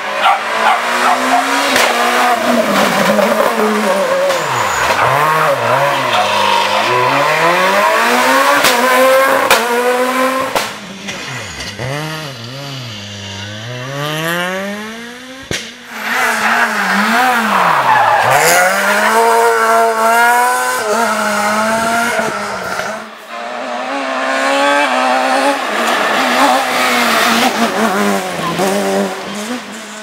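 Rally car engines run hard, one pass after another: the revs climb through the gears and drop sharply at each shift and on braking. The sound jumps abruptly from one car to the next several times.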